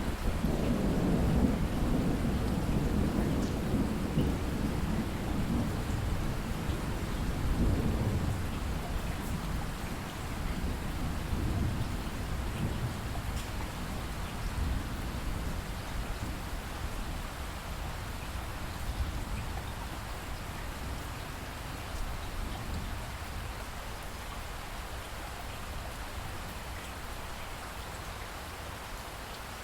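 Steady rain falling, with rolling thunder rumbling through the first ten or so seconds, swelling twice and then dying away, leaving an even rain hiss.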